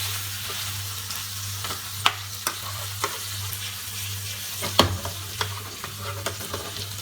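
Basa fish fillets frying in butter in a pan, sizzling steadily, with several sharp taps of a spatula against the pan. A steady low hum runs underneath.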